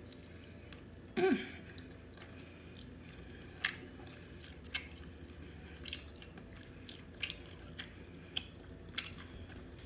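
Close-up chewing of sauce-covered smoked turkey leg meat: soft, wet mouth clicks and smacks at irregular intervals, with a brief vocal sound of enjoyment about a second in.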